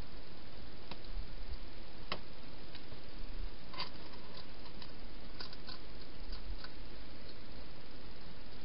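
Hedgehog feeding at a bowl inside a plastic feeding box: about ten small, irregular clicks, over the steady hiss of the camera's microphone.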